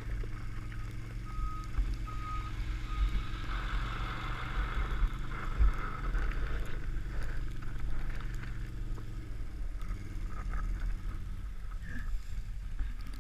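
Can-Am XMR ATV engine running steadily ahead while a plastic trash can lid is towed over snow and road, with sliding and scraping noise. A few short high squeaks sound about one to three seconds in.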